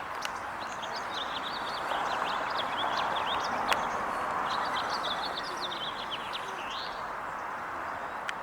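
Small songbirds chirping rapidly and continuously, many short high notes, over a steady background rush of outdoor noise.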